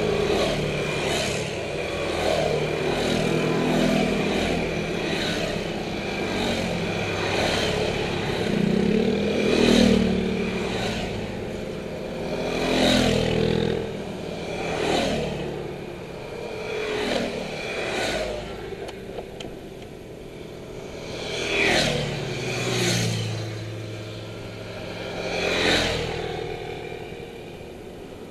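A string of big motor scooters passing one after another, each engine swelling and fading as it goes by, the pitch of several dropping steeply as they pass.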